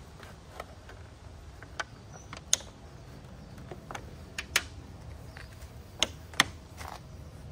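Small magnets sewn into the hem of a mosquito-net window sock clicking onto the steel of a car door as the net is pulled down and pressed into place. The clicks are sharp and separate, some in close pairs.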